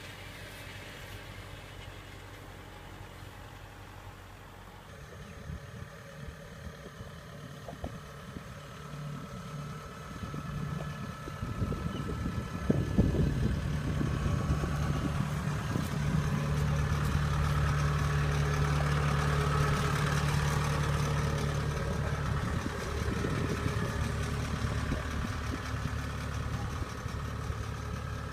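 Diesel engine running, faint at first and growing louder, then running steadily at close range from a little before halfway, with a few knocks as it loudens. The later, louder engine is a crawler combine harvester's.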